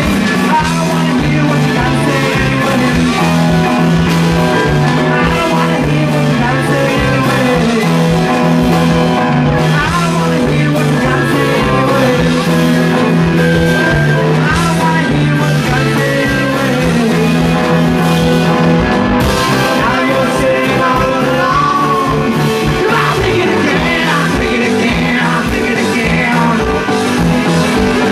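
A rock band playing live, with guitar, bass and a steady drum beat.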